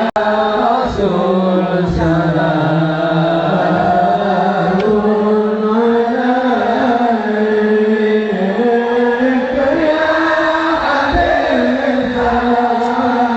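Islamic devotional chant (sholawat) sung in long, slowly wavering drawn-out notes.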